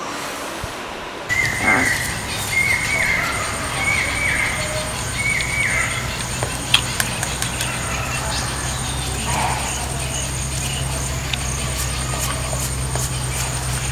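Quiet room tone gives way about a second in to outdoor ambience: a bird calls four times, each call a short falling note about a second apart. Under it run a steady low hum and a thin high whine that comes in stretches.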